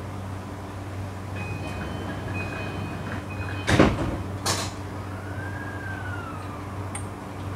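E235 series train's sliding doors closing at a station stop: door-closing warning beeps, then the doors thud shut just before the middle, with a second sharper knock a moment later from the door locks. A short whine rising and falling in pitch follows, over the train's steady low hum.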